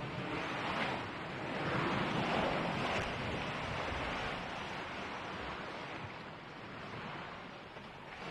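Sea water ambience: an even rushing of water that swells a couple of seconds in and eases off again.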